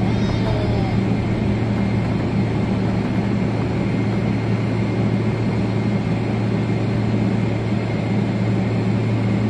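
Steady cabin noise of a Boeing 777 taxiing, its jet engines running at low taxi power with an even low drone and hum.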